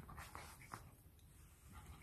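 Faint scratching and rustling as a small puppy mouths a stick and noses at a rug, a few light scratchy clicks.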